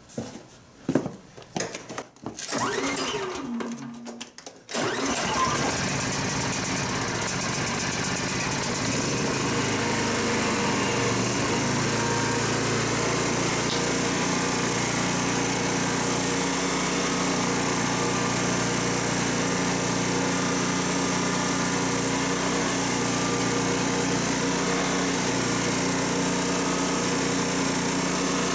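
Champion 4000-watt inverter generator engine catching about five seconds in, after a few short knocks and a brief sputter, then running steadily. The owner says its carburetor is a bit gummed up.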